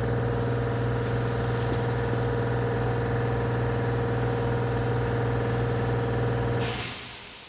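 Steady machine hum with a deep low drone and a constant higher tone over it, fading out near the end.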